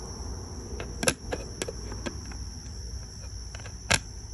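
A few sharp clicks and knocks from the plastic SSD enclosure as its slide-on cover is forced back into place by hand. The loudest click comes near the end.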